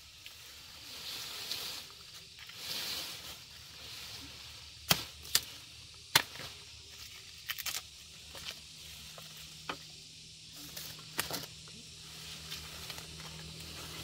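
Sugarcane stalks being chopped with a blade: about ten sharp, irregularly spaced strikes, some in quick pairs. The strikes begin about five seconds in, and the first two are the loudest.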